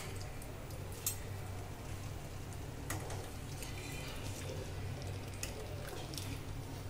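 Steel ladle scooping thin gravy from a pot and pouring it into a steel bowl, with a couple of light metal clinks over a faint steady hum.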